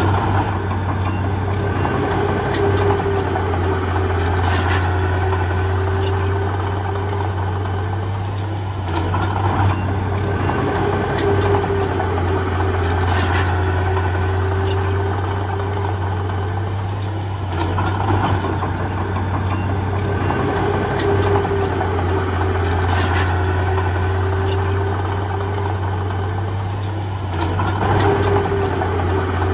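Heavy diesel engine of earthmoving machinery running steadily, with a higher whine that rises and fades in stretches of a few seconds and scattered light metallic clanks.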